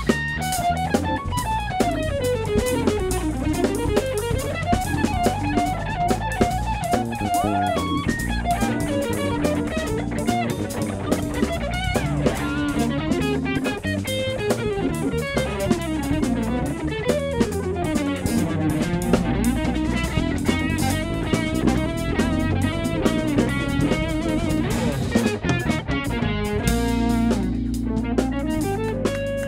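Live funk band: an electric guitar plays the lead over a drum kit, with the guitar notes sliding up and down and then running fast.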